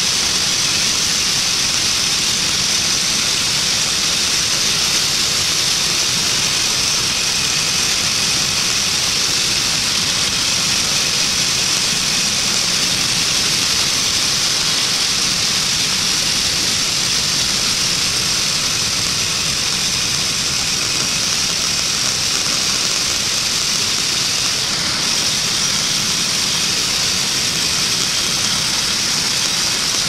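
Woodland Mills manual bandsaw mill sawing a wide board from a black walnut log: the mill's gas engine running steadily under load, with the band blade's hiss through the wood.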